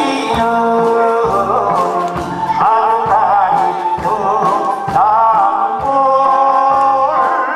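Man singing a Korean trot song into a microphone over a karaoke backing track with a steady beat, his voice wavering with vibrato on held notes.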